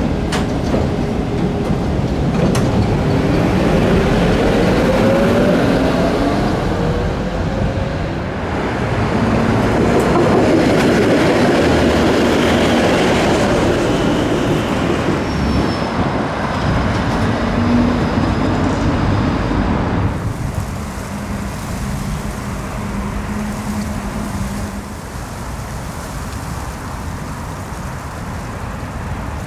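Tram running on street track, with wheel-on-rail noise and a whine from its motors that rises in pitch a few seconds in as it gets under way. About two-thirds of the way through, the sound drops to a quieter, more distant hum.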